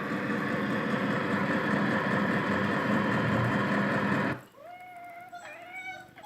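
Recorded truck engine running, played from a sound-effects CD through a speaker, cutting off abruptly about four seconds in. High-pitched animal cries follow near the end.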